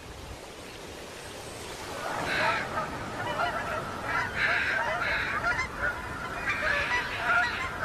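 A large flock of waterfowl calling in flight, many overlapping calls that start about two seconds in and go on as a dense chorus.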